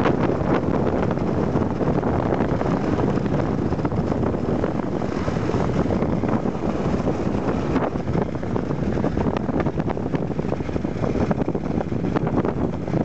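Wind rushing over the microphone during a fast slide down a snowy run, over the steady scraping of sliding on snow, with many small knocks and bumps throughout.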